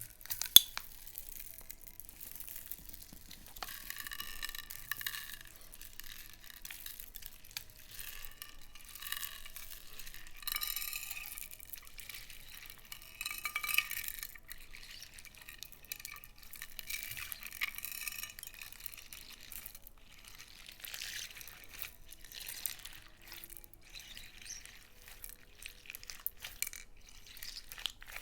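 Slime being stirred and squished in a container, with irregular wet sticky crackling and squelching, and a sharp clink about half a second in.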